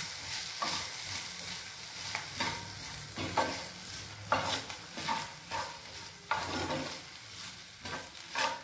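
A metal spatula stirring and scraping diced potato, carrot and onion as they fry in oil in a clay kadai: about a dozen uneven scraping strokes, roughly one a second, over a light sizzle.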